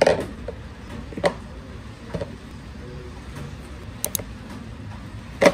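About half a dozen separate knocks and taps of vegetables being put into a plastic colander on a countertop, over a steady low hum.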